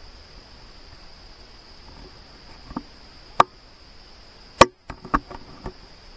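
A handful of sharp clicks and knocks close to the microphone, starting near the middle, the loudest two coming about three and a half and four and a half seconds in. Under them runs a steady high insect drone.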